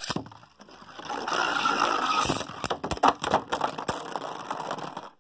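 3D-printed Beyblade spinning tops launched into a plastic stadium, whirring as they spin and scrape across the floor, then clashing with a run of sharp clacks a few seconds in as one top bursts apart.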